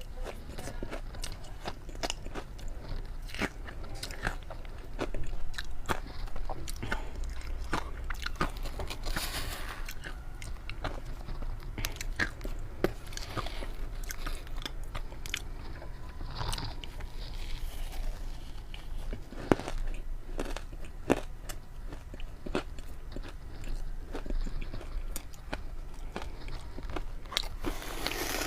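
Ice being bitten and chewed close to the microphone: irregular sharp crunches and cracks of breaking ice, with a louder crunch near the end.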